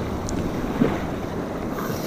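Whitewater rapids rushing around an inflatable kayak: a steady, noisy river rush with a couple of small splashes as the paddle works the water.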